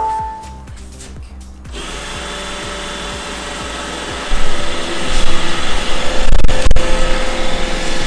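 iRobot Roomba e5 robot vacuum ending its short beep tune, then its vacuum motor and brushes starting up about two seconds in and running with a steady whine. About four seconds in the sound grows louder and more uneven, with a few sharp knocks.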